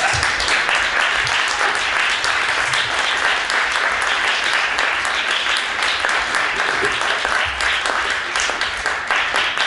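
Audience applauding at the end of a cimbalom piece: a dense, steady clatter of many hands clapping.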